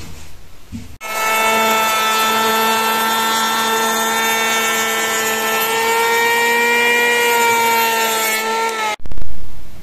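Kinzo Pro electric hand planer running with a steady motor whine for about eight seconds. It starts abruptly about a second in, dips slightly in pitch near the end and cuts off, with a brief loud low bump just after.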